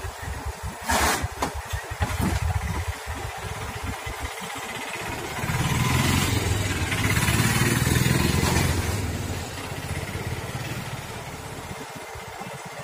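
JCB 30 Plus mini excavator's diesel engine running with a pulsing beat. It grows louder and fuller for a few seconds around the middle as it takes load while the arm and bucket are worked, then settles back. There is a sharp knock about a second in.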